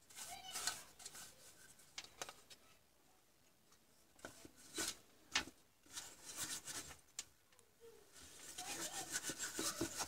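A bristle brush sweeping dust off an LCD monitor's power supply circuit board, in a series of short, irregular brushing strokes.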